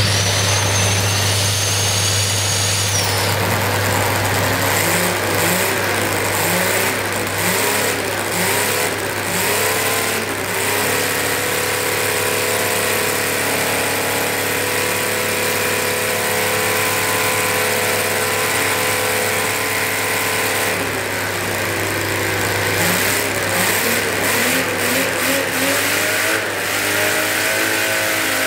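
Air-cooled 87 cc model V12 engine on methanol–nitromethane glow fuel, spun up by a cordless drill used as a starter, whose high whine stops about three seconds in. The engine then runs, revving up and down, holds a steady speed, dips about two-thirds of the way through and revs up again near the end.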